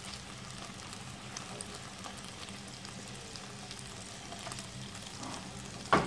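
Raw chicken breast slices frying in melted butter in a pan: a steady sizzle with scattered small crackles as more pieces are laid in by hand. Near the end, a single sharp knock.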